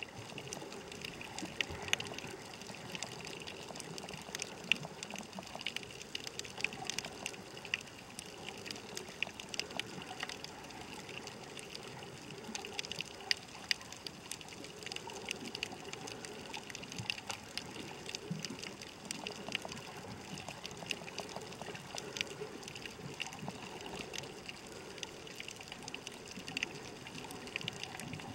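Underwater reef ambience: a steady wash of water noise with frequent sharp, irregular crackling clicks.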